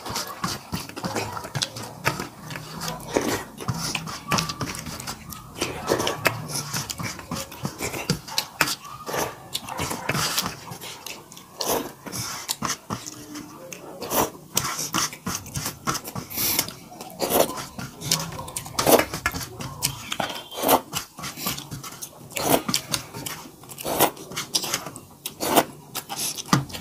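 Two people eating rice and curry by hand: close-up chewing and lip-smacking, a steady run of irregular wet clicks, with fingers working rice on steel plates.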